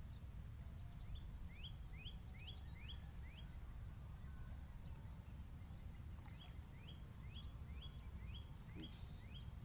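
A bird calling: a series of short, high, rising whistled notes, about three a second, in two runs, over a steady low rumble.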